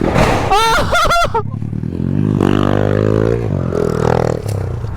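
A few short whooping calls, then a small motorcycle engine, the 110cc pit bike, revving up and easing back down.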